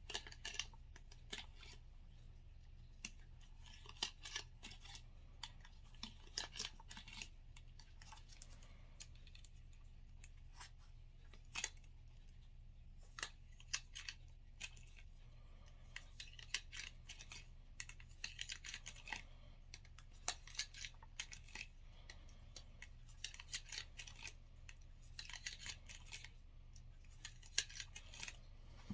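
Cleaning rod pushing and pulling cotton patches through a Walther CCP pistol barrel. It makes faint, scratchy rubbing strokes and small clicks of the rod and gloved hands against the metal, irregular throughout, over a steady low hum.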